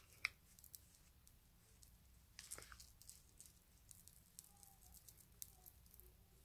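Near silence with faint scattered clicks and a soft rustle about two and a half seconds in: small handling noises while a makeup sponge is dabbed on the face.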